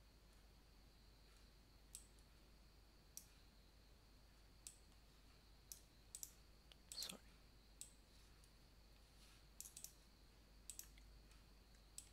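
Faint computer mouse clicks, about a dozen scattered single clicks and quick double clicks over near-silent room tone with a faint steady high tone.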